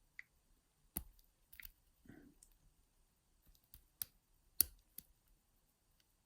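Faint, irregular small clicks of a lock pick and tension tool working the pin stack of an all-brass padlock, with a brief soft scrape about two seconds in. The lock is being picked with tension in the reverse direction.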